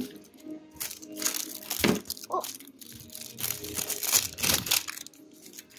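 Clear plastic wrap crinkling and crackling in irregular bursts as hands peel it off a plastic toy ball.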